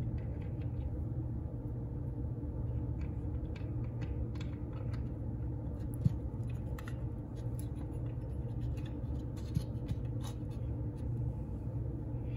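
Light ticks and scrapes of fingers handling small nuts and studs on the metal back of a car instrument cluster, with a sharper click about six seconds in and another about three and a half seconds later, over a steady low hum.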